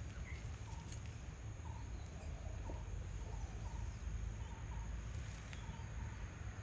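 Outdoor nature ambience: a steady high-pitched insect drone, with faint short bird chirps scattered through it and a low rumble underneath.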